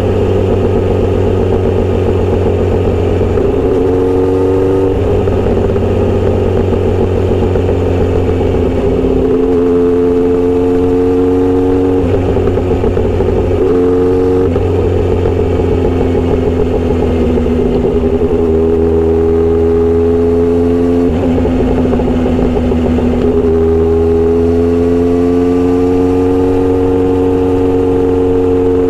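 Kawasaki Z900RS inline-four with a Misty Kintaro short-pipe steel exhaust, heard on the move. The engine note rises and falls with the throttle, with several gear changes where the pitch drops and climbs again.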